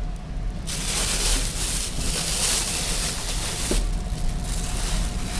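Rustling of the thin white wrapping inside a cardboard gift box as a hand pushes through it, starting just under a second in and going on in uneven swells.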